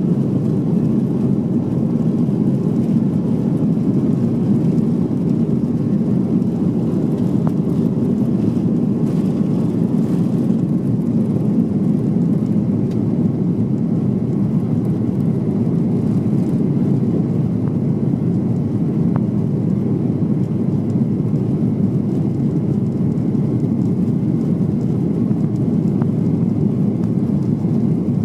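Steady, loud cabin noise of a Boeing 737-800 with CFM56-7B engines at takeoff power, heard from a seat over the wing through the takeoff roll, lift-off and initial climb.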